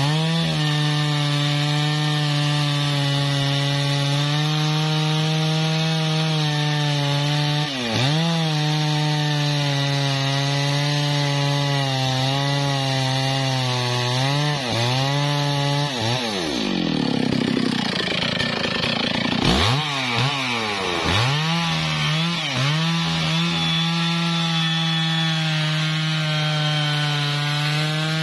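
Stihl MS660 two-stroke chainsaw cutting into a teak trunk at full throttle, its engine note steady under load. The throttle is let off several times: briefly, then for about four seconds just past halfway, before it revs back into the cut.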